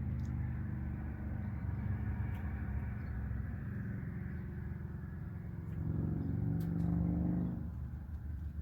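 Steady low mechanical hum that swells for a second or two about six seconds in, with a few faint clicks.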